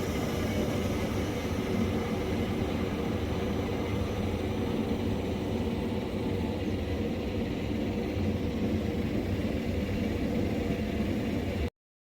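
CNC wood lathe running steadily, a constant mechanical hum and whir that cuts off suddenly near the end.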